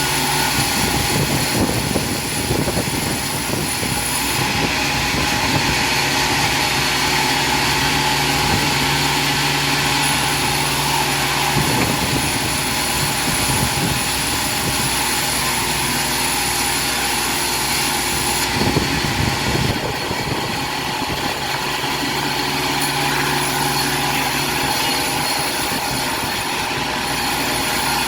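Industrial sawmill machinery running: a loud, steady mechanical din with a few steady hum tones, broken now and then by short clusters of knocks and clatter.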